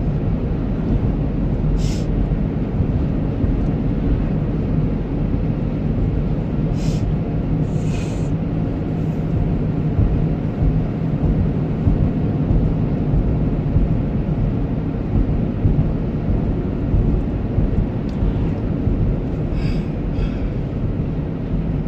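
Car interior road noise while driving at a steady speed: a constant low rumble of engine and tyres with a steady hum, and a few brief high hisses.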